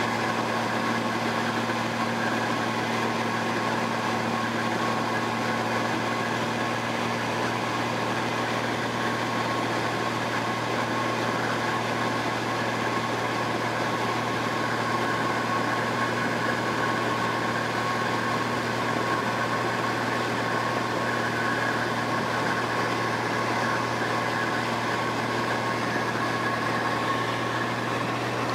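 Light high-wing airplane's engine and propeller droning steadily, heard from inside the cabin: a constant low hum with higher steady tones above it.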